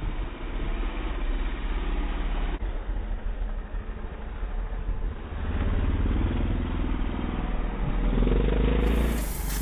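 Small dirt bike engine revving around a dirt track, the revs rising and falling through the corners and getting louder in the second half.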